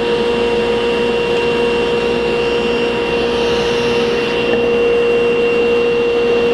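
SawStop table saw running at speed with its blade spinning free, not yet cutting: a steady, loud hum with one strong, even tone.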